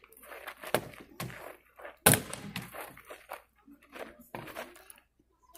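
A spear and other weapons knocking against wooden round shields in a staged fight: five or so sharp thunks, the loudest about two seconds in.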